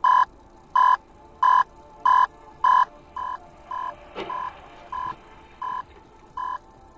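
Electronic beeper sounding a short single-pitched beep about every 0.6 seconds: the first five beeps loud, the rest quieter. A faint knock comes about four seconds in.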